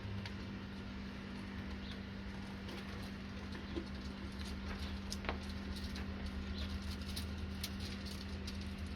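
Nuremberg Lark pigeons moving about, with scattered light taps and scratches that grow busier in the second half and one sharper tap about five seconds in, over a steady low hum.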